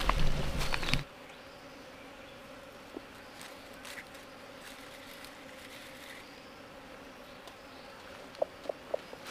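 Insects buzzing with a steady, low drone that holds one pitch. A loud rustle of footsteps in grass fills the first second, and a few short chirps come near the end.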